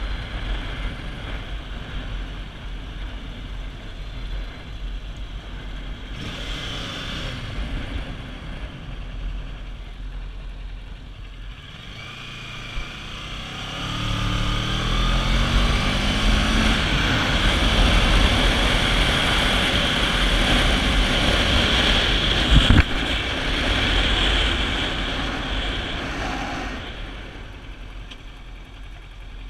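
Kawasaki Ninja 650's parallel-twin engine and wind rush on the camera microphone while riding. The engine pitch climbs as the bike accelerates a little under halfway through, it stays loudest through the middle with one sharp knock about three-quarters through, and the sound drops away as the bike slows near the end.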